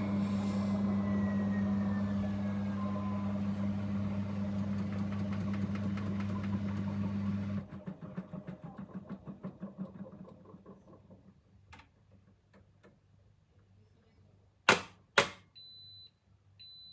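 AEG washing machine slowing down from a loud spin. A steady hum with a whine falls gradually in pitch until the motor cuts off about seven and a half seconds in. The drum then coasts, with a rhythmic pulse that slows and fades over a few seconds. Near the end come two sharp clicks followed by short high beeps.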